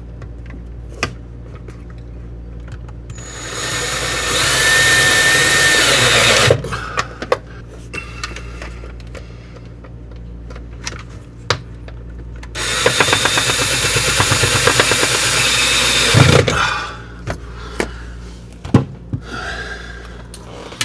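Cordless power drill driving screws in two runs of about three seconds each, the first about three seconds in and the second about halfway through, with small handling clicks between them.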